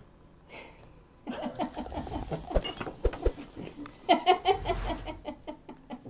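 A man and a woman laughing hard, in a string of short, uneven bursts that begins about a second in.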